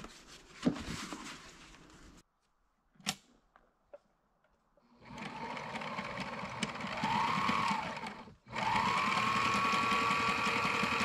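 Electric sewing machine stitching fabric in two runs: it starts about five seconds in, stops briefly just after eight seconds, then runs steadily again with the motor's whine rising and holding. A few faint handling clicks come before it.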